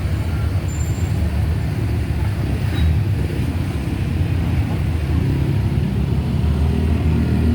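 Bus engine running with a steady low rumble; no horn sounds.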